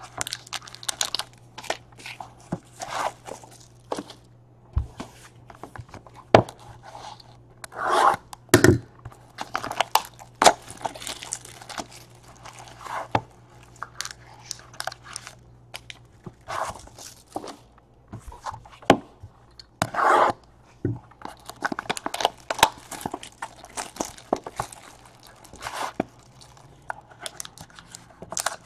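Sealed trading-card boxes being opened by hand: wrapping tearing and crinkling, cardboard scraping, and the boxes knocking against the table in short, irregular bursts. A faint steady low hum runs underneath.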